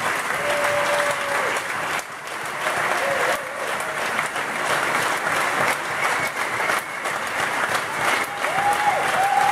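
Audience applauding steadily and loudly, a long continuous round of clapping.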